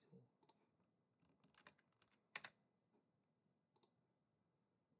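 Faint, scattered keystrokes on a computer keyboard: a handful of separate clicks, the sharpest about halfway through.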